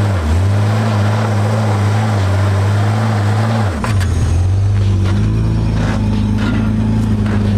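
Car engine running steadily while driving, its note dipping briefly twice, about a quarter second in and again near four seconds, before settling back to a steady drone.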